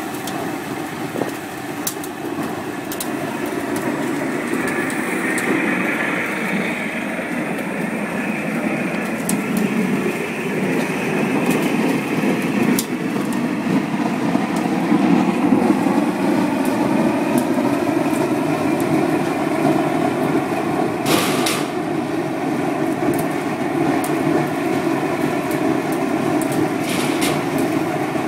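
Sawdust burner firing at full flame: a steady rushing noise from the flame jet and its air blower, with a faint hum running through it. A few sharp cracks break in now and then, the strongest about two-thirds of the way through.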